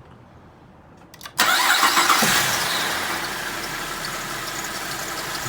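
Holden VZ's 3.6-litre V6 being started: a few starter clicks about a second in, then the engine catches almost at once, flares briefly in revs and settles into a steady idle. It is running fine, the misfire cured by bridging 12 volts to the bank that had only 3.5 volts.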